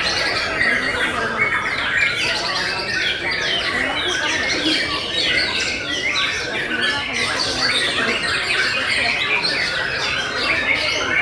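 Several caged white-rumped shamas (murai batu) singing at once: a dense, overlapping chorus of rapid, varied whistled phrases that never pauses.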